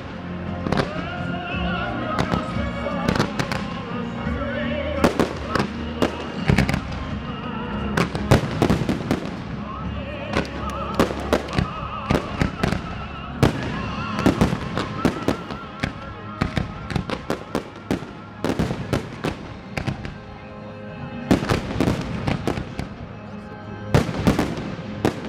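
Aerial firework shells of a kamuro sequence bursting in an irregular series of sharp bangs. The bangs come thickest in clusters about a third of the way in, in the middle, and near the end. A music soundtrack plays underneath throughout.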